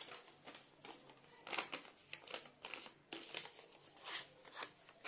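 Handling noise: a run of about a dozen short, uneven scratchy rustles and scrapes, as of something being rubbed or rustled close to the microphone.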